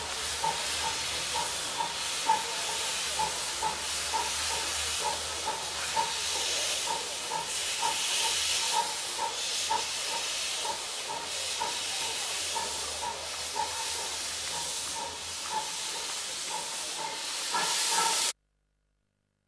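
Steam train running, with a steady hiss of steam and a regular beat about two or three times a second; the sound cuts off abruptly near the end.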